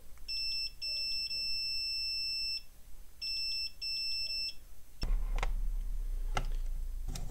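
Digital multimeter's continuity beeper sounding as the probes touch two points on a circuit board, in several broken stretches of one steady high beep as contact makes and breaks: the beep means the two points have a continuous path. A few sharp clicks over a low hum follow near the end.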